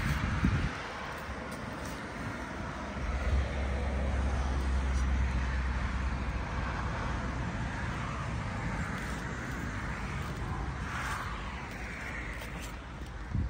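Kawasaki Z900's inline-four engine idling through an SC Project S1 GP slip-on exhaust, a steady low exhaust note that grows louder and deeper for a few seconds about three seconds in.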